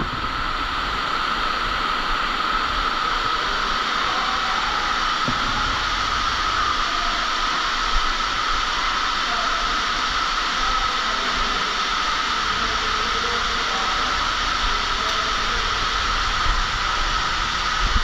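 Underground waterfall pouring down a mine shaft: a steady, even rush of falling water and spray.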